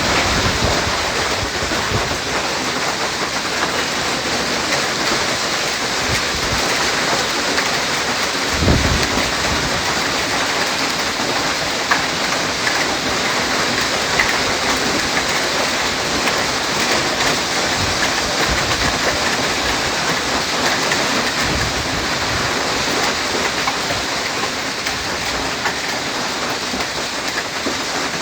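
Hail and heavy rain pelting down in a dense, steady hiss, with a few sharper single hailstone hits and a low thump about nine seconds in.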